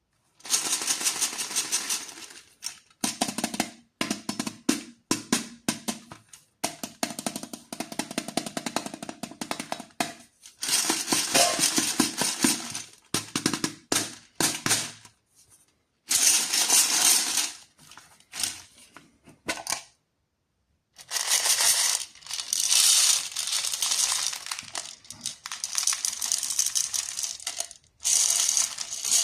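Plastic candy wrappers being crinkled and torn open by hand, in bursts of dense crackling a second or several long, separated by short pauses.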